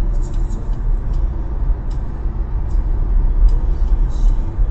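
A road vehicle driving: a steady, loud low rumble of engine and road noise, with faint light ticks or rattles scattered through it.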